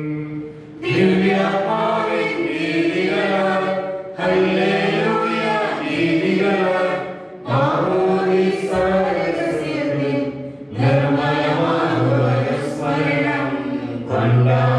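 Sung liturgical chant in phrases of about three to four seconds, with short breaks for breath between them.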